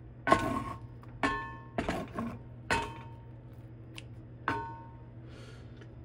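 Spatula knocking against a cast iron skillet while turning a fried egg: about six sharp clanks, each with a brief metallic ring, the last about four and a half seconds in.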